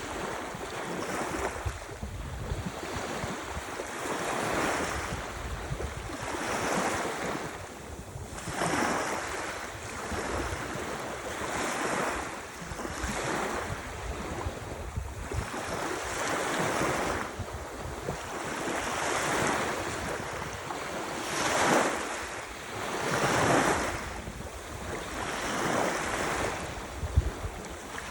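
Ocean surf: small waves breaking and washing in one after another, the hiss swelling and fading every couple of seconds. Wind buffets the microphone with a low rumble underneath.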